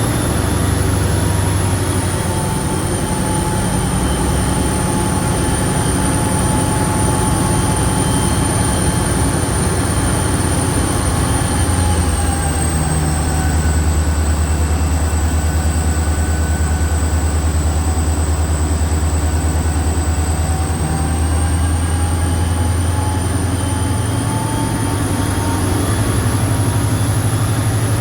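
Victorian Railways C class diesel-electric locomotive C501, an EMD V16 two-stroke, running loud and steady with a deep drone and a high whine. The whine drops slightly about twelve seconds in as the low drone strengthens, and rises again over the last several seconds.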